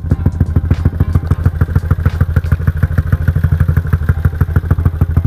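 Motorcycle single-cylinder four-stroke engine idling steadily through an aftermarket Espada E6 32 mm exhaust with its silencer insert left in: a deep, even exhaust beat of about ten pulses a second.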